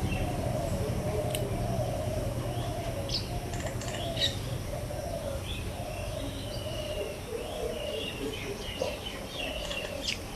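Birds chirping and calling, among them a low, repeated cooing.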